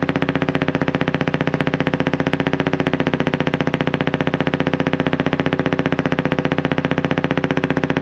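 Fishing boat's engine running steadily at idle, with an even pulse of about a dozen beats a second.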